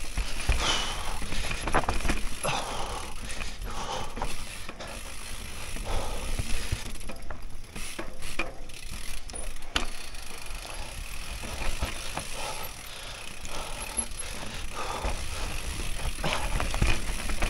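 Mountain bike riding down a rough dirt trail: tyres rolling over dirt and roots, with many short knocks and rattles from the bike over bumps and the rear hub ticking.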